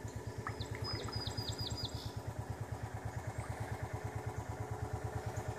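An engine idling steadily with an even low throb. A bird gives a short run of quick high chirps about a second in.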